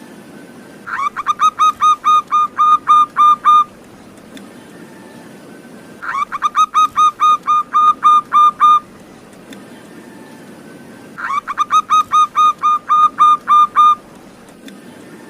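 Zebra dove (perkutut) singing: three bouts of rapid, evenly spaced cooing notes, about four or five notes a second, each bout lasting nearly three seconds with short pauses between.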